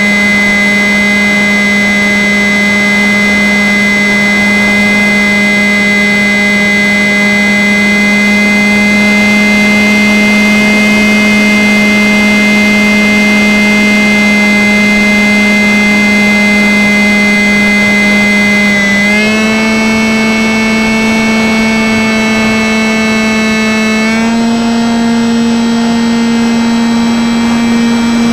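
Electric motor and propeller of a Stryker RC flying wing, heard from a camera mounted on the plane in flight: a steady loud whine over a rush of air. Its pitch steps up slightly twice, about two-thirds of the way through and again near the end, as the motor speeds up.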